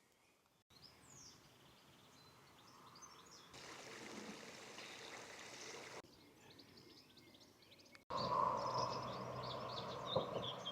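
Small songbirds chirping and singing over faint outdoor background noise, in several short stretches that change abruptly. The last few seconds are louder, with a steady low hum under the birdsong.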